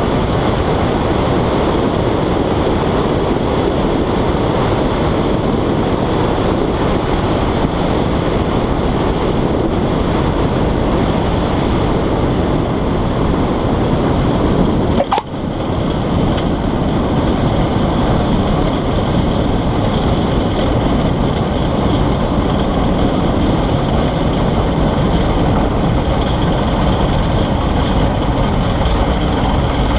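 Small piston engine of a 1938 Piper J-3 Cub at low landing power, heard through heavy wind rush on an outside-mounted camera through the approach, touchdown and ground roll. A faint high whistle sounds during the first third, and there is a single sharp click about halfway through.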